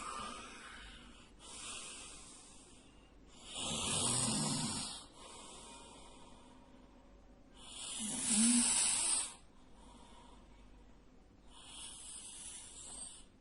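A sleeping man snoring loudly: two heavy snores about four seconds apart, with quieter breaths between them.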